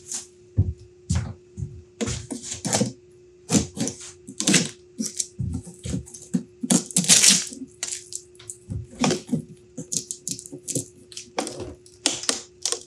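Plastic packing tape on a plywood shipping crate being slit with a blade and peeled off, crackling and tearing in many short bursts, with clicks and knocks of the crate's lid as it is lifted open near the end.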